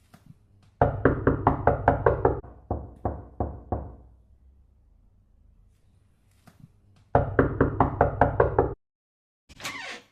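Rapid knocking: a run of about ten quick knocks, followed by four slower, fainter ones. After a pause comes a second quick run of about ten knocks, then a short noisy burst near the end.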